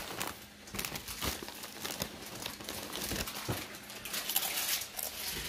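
A crinkly chip bag rustling, with irregular crackling throughout and chips crunching as they are bitten and chewed.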